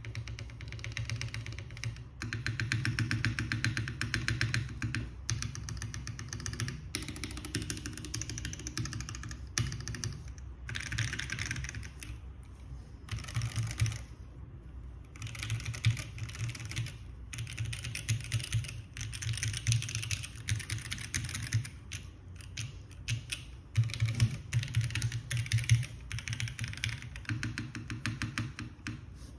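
Typing on a Keycult No. 1 Rev. 2 custom mechanical keyboard with lubed JWK Popus linear switches on a brass plate in a gasket mount, with CRP keycaps: runs of fast key clacks with short pauses between them, and a few louder strikes in the second half.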